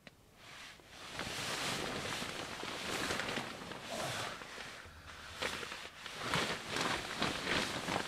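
Synthetic winter sleeping bag rustling and swishing in irregular waves as the sleeper shifts around inside it.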